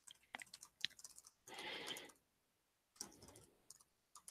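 Faint typing on a Surface Book 2 laptop keyboard: a quick run of key clicks while a password is entered, then a brief soft rustle about a second and a half in, and a few more scattered clicks.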